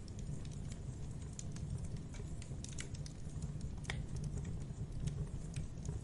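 Wood campfire crackling and popping, irregular sharp snaps over a steady low rumble, with one louder pop about four seconds in.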